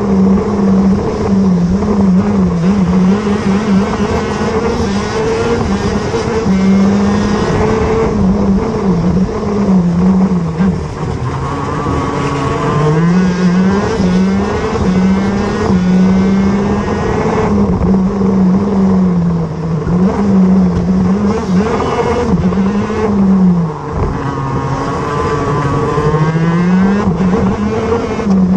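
Two-stroke engine of a 125 cc six-speed shifter kart at racing pace, its pitch climbing as it accelerates and falling off as it slows for corners, again and again through the lap.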